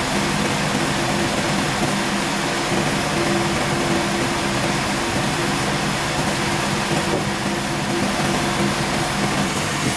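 Sawmill machinery running steadily: a constant mechanical hum under a wide, even rushing noise, with no strikes or changes.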